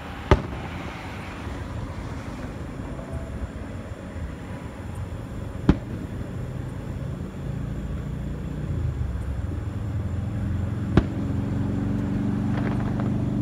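Aerial fireworks shells bursting with three sharp bangs about five seconds apart, over a steady low rumble that grows louder in the second half.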